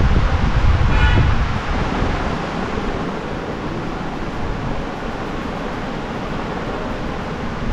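Steady rushing noise with a heavy low rumble, like air buffeting a phone microphone, a little louder over the first two seconds, with a brief faint high tone about a second in.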